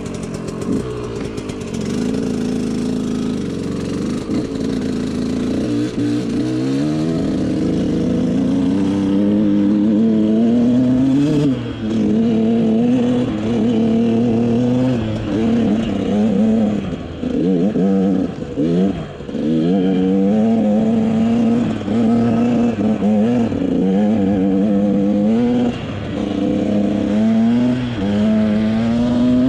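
KTM SX 125 motocross bike's single-cylinder two-stroke engine running and revving hard, its pitch climbing and dropping back again and again.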